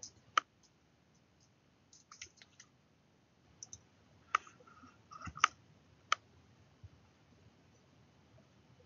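Faint, scattered clicks of a computer keyboard and mouse: a short run of keystrokes, then a few single clicks, stopping about six seconds in.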